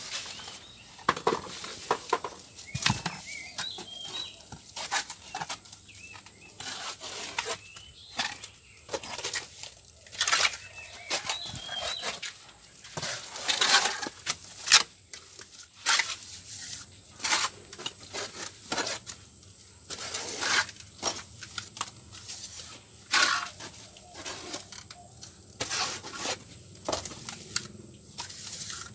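Cement mortar flung and slapped onto a brick wall with a steel plastering trowel, then scraped and smoothed: a run of wet slaps and scrapes at irregular intervals, every second or so. A steady high whine runs underneath.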